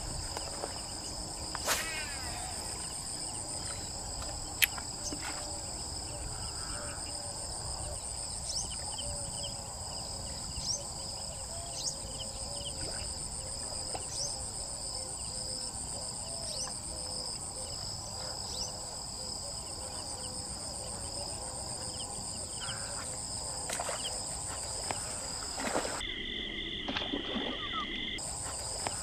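Insects calling steadily in two high-pitched bands, with a lower run of short repeated calls and a few sharp clicks. Near the end the insect sound cuts out for about two seconds and a different pulsing tone takes its place.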